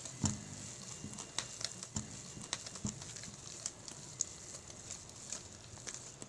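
A wire whisk working thick cookie dough in a stainless steel bowl while flour is mixed in, its wires knocking and scraping against the metal in an irregular run of light clicks, a few a second.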